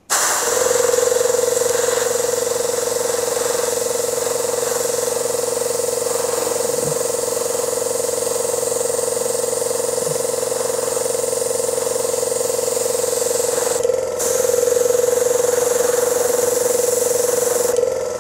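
Airbrush spraying paint: a steady hiss of air, cut off briefly about fourteen seconds in, over a steady humming tone.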